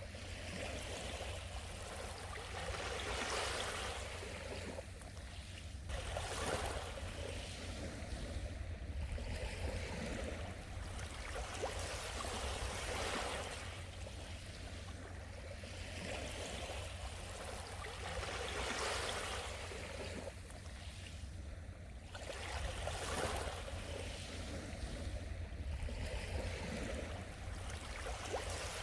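Small sea waves washing onto the shore, the wash swelling and falling back every three to four seconds.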